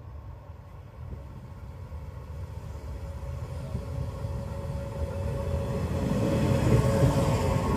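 A JR 381 series electric train approaching along the track: a low rumble from the wheels on the rails grows steadily louder, with a steady whine above it that strengthens as the train nears.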